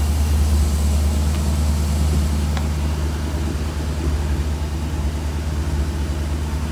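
1966 Cadillac 7.0-litre (429) V8 with Holley Sniper throttle-body fuel injection idling steadily at a high idle of about 1,100 rpm with the idle air control motor unplugged: a solid idle that does not hunt.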